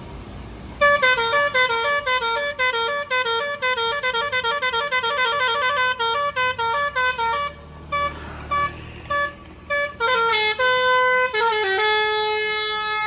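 A tour bus's basuri 'telolet' musical horn, with roof-mounted trumpets, playing a fast melody of short stepping notes. About seven seconds in it thins to a few scattered notes, then resumes with longer held notes.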